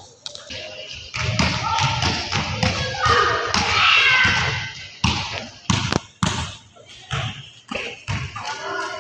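Basketballs bouncing on an indoor court floor: sharp thuds at irregular intervals. People's voices run underneath, loudest from about three to four and a half seconds in.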